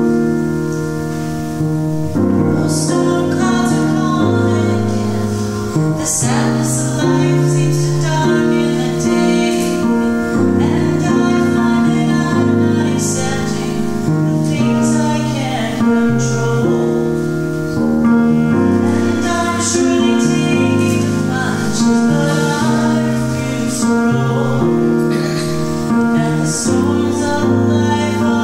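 A woman singing to her own grand piano accompaniment. The piano plays alone at first, and her voice comes in about two seconds in.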